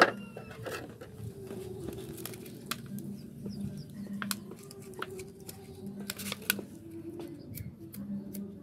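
Scattered light clicks, taps and scrapes of hand tools working at the metal cup of a small screw-clamp press used to hot-patch a motorcycle inner tube.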